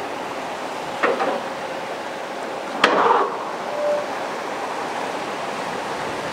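Surf washing in steadily, with two sharp knocks, about one and three seconds in, as an eight-wheeled LAV armoured vehicle comes down a landing craft's steel bow ramp.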